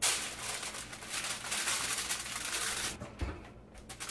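Aluminum foil crinkling as it is pressed and crimped over the edges of a baking dish, for about three seconds. Then a low thump as the oven door is let down.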